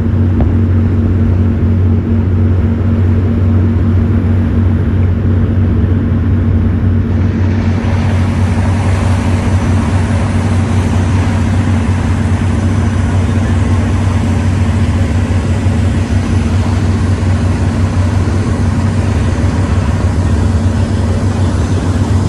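Steady low engine drone of a moving vehicle, with an even rush of noise over it and no breaks.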